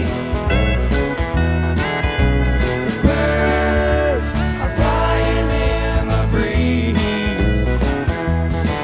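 A live country band playing a jam-style song, with guitars, a steady drum beat and a singing voice.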